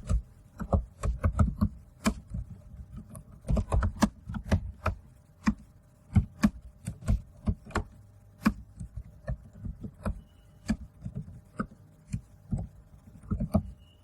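Computer keyboard typing: irregular key clicks in quick runs with short pauses between.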